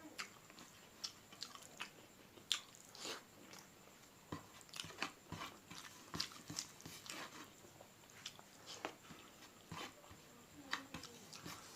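A person eating, faintly heard: irregular small crunches and clicks of biting and chewing food.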